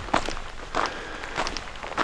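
A hiker's footsteps crunching on a trail at a steady walking pace, about four steps in two seconds.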